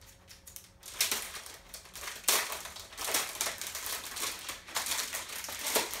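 Plastic protective bag crinkling and rustling as it is pulled open and off a keyboard by hand. The irregular rustles start about a second in.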